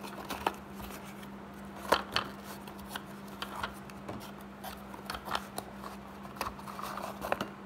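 Small cardboard box and its packing being handled and opened on a table: scattered rustles, scrapes and light taps, the loudest about two seconds in and again near the end. A faint steady hum runs underneath.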